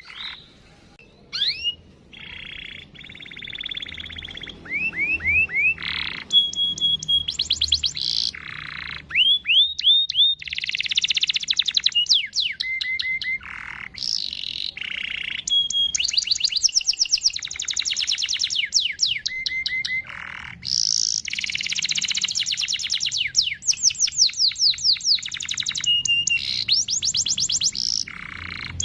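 Domestic canary singing a long rolling song of fast trills, runs of repeated chirps and rising and falling whistled sweeps, with only brief pauses.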